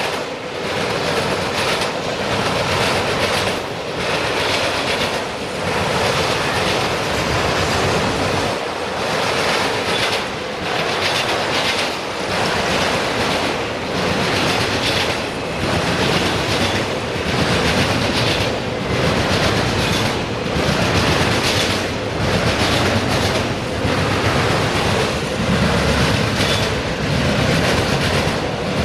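Freight train of autorack cars rolling past at speed: a steady rumble of steel wheels on rail with a repeated clickety-clack as the wheels pass over rail joints.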